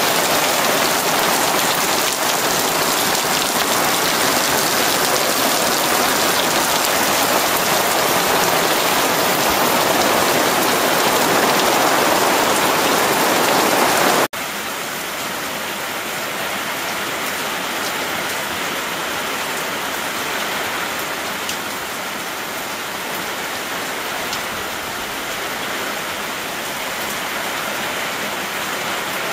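Heavy rain falling steadily in a dense hiss. About halfway through it cuts abruptly to a somewhat quieter, thinner rain sound.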